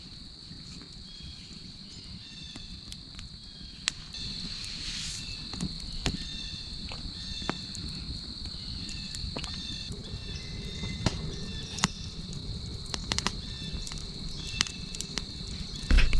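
Crickets trilling in one steady, high-pitched drone, with fainter chirps above and below it. Scattered sharp clicks and crackles sound over it.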